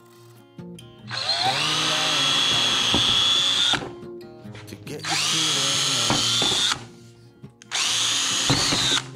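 Handheld power drill boring into a wooden barn door board, run three times for a couple of seconds each; the motor winds up to speed at the start of each run and holds a steady high whine.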